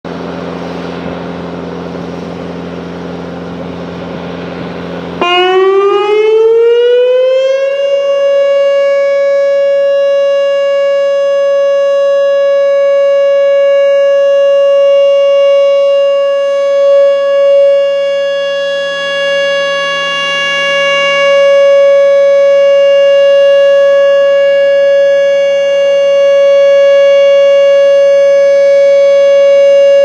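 Whelen WPS 2910 electronic outdoor warning siren sounding its steady Alert tone. It comes on about five seconds in, rises in pitch for a few seconds, then holds one loud steady tone with many overtones.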